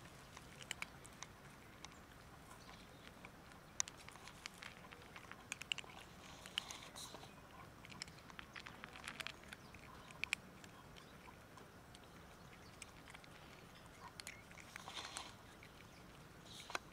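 Two cats crunching dry kibble from plastic food containers: a quiet run of sharp, irregular crunches and clicks.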